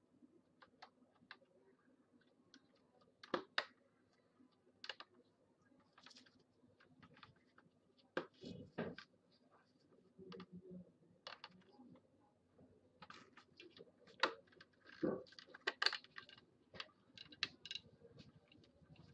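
Faint, irregular light clicks and knocks of hard objects being handled. A sharp pair comes about three and a half seconds in, and a denser cluster comes near the end.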